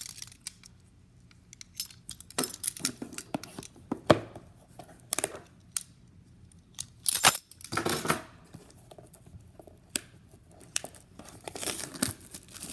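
Plastic wrapping of a trading card hobby box and its packs being torn open and crinkled, with irregular rustles and sharp taps of the cards and box being handled.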